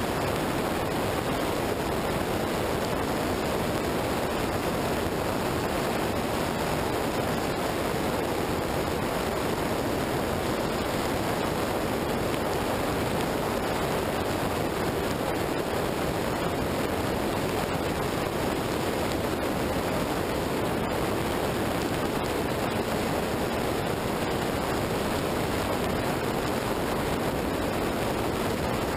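Steady rushing wind and wet-road tyre noise from a vehicle moving at speed in the rain, picked up by an action camera mounted low on the bodywork. The noise holds an even level throughout, with no distinct engine note.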